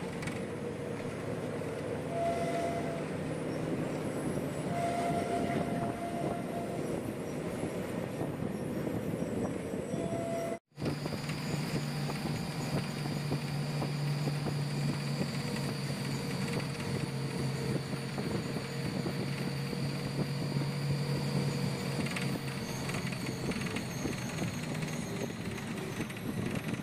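Running diesel bus heard from inside the passenger cabin: steady engine and road noise, with a few short high tones in the first ten seconds. About ten seconds in the sound breaks off for an instant, then goes on as a steady low hum with a faint high whine.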